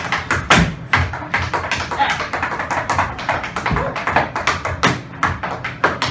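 Tap shoes striking a hard floor in a fast, irregular improvised rhythm of crisp taps, with a couple of heavier stamps, one in the first second and one near the middle.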